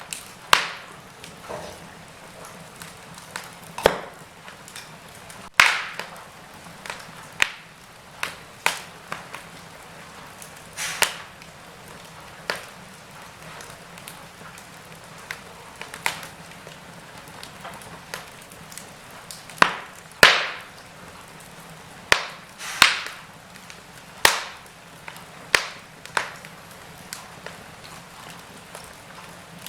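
Wood fire crackling in a fireplace: irregular sharp pops and snaps, roughly one or two a second, some louder than others, over a faint steady hiss.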